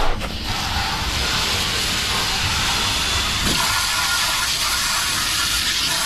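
Hand-held water jet gun spraying a steady hissing jet onto a tanker's opened stainless-steel manhole lid and top, rinsing off residue of the thick cargo.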